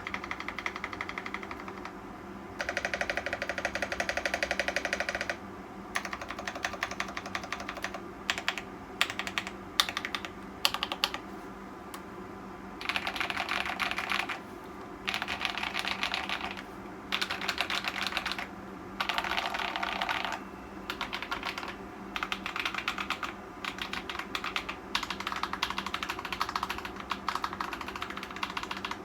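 Typing on a Tecware Veil 87 mechanical keyboard with Akko Cream Blue v3 switches: stretches of fast, dense keystrokes broken by short pauses, with a few louder single key presses about a third of the way in. A steady low hum runs underneath.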